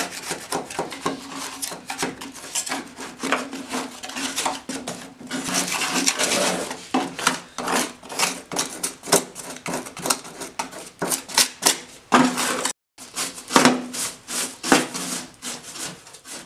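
Quick, repeated scrubbing strokes scraping caked dirt and leaf debris off a snowmobile's metal side rail, with a brief break near the end.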